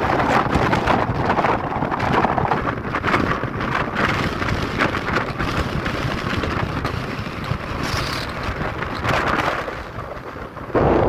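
Strong wind gusting and buffeting the microphone with a low rumble, easing for a moment and then surging back up sharply near the end.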